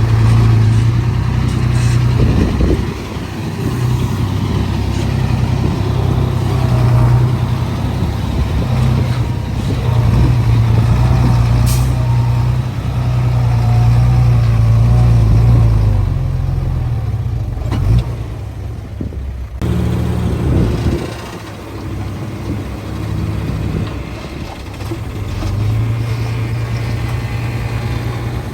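Heavy diesel engine of earthmoving machinery running and working under changing load, its loudness rising and falling, with a sharp click about twelve seconds in.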